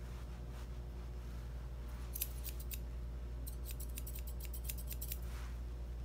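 Grooming shears snipping through a Bichon puppy's fur as its head is scissored: a few separate snips about two seconds in, then a quick run of several snips a second for nearly two seconds.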